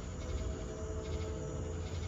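Summer-night insect chorus of crickets and other insects, shrilling in steady pulses over a low rumble. A held humming tone of several pitches sounds from just after the start until near the end.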